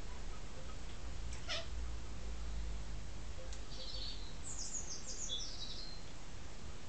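Domestic cat giving a short mew that falls in pitch, about one and a half seconds in, a cat meowing at birds outside the window.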